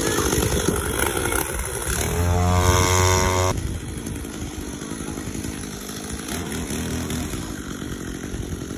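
Chainsaw engine running, revved hard at a steady pitch for about a second and a half a couple of seconds in, then dropping off abruptly to a quieter run.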